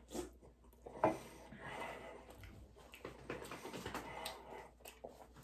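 Quiet eating and drinking sounds at a table: soft chewing and swallowing with small clicks and rustles, and one sharper knock about a second in.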